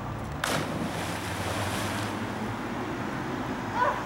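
A person plunging feet-first into a tidal river from a bridge: one sharp splash about half a second in, followed by the rushing churn of the water closing over her for a second or so.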